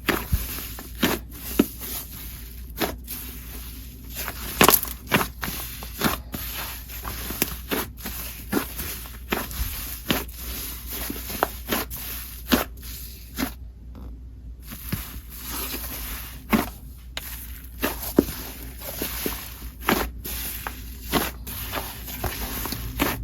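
Sizzly cloud cream slime being squished and stretched by hand: an irregular run of sticky pops and clicks over a soft crackle.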